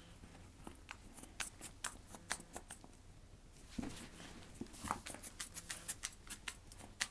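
Corgi chewing a plush starfish toy: irregular soft crackling and clicking of teeth working the fabric, with a couple of dull thumps, and no squeak left in the toy.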